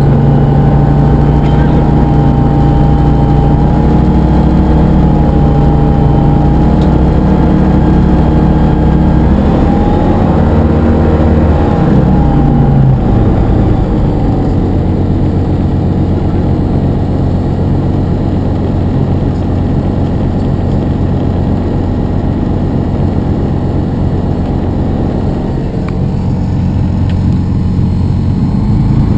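Diamond DA-20 light aircraft's piston engine and propeller running steadily at low taxiing power. A little past ten seconds in, the engine note shifts over a couple of seconds, then settles lower and slightly quieter.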